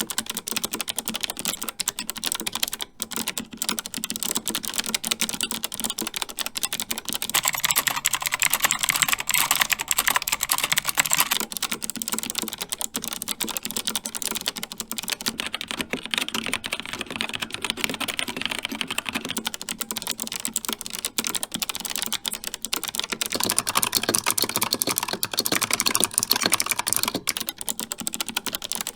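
Typing on an MSI Vigor GK50 mechanical keyboard with Kailh White switches: a steady stream of key clicks, a little heavier about a quarter of the way in and again near the end.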